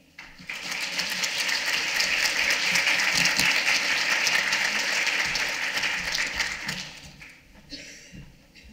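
Audience applauding: the clapping starts just after the opening, holds steady, then dies away about seven seconds in.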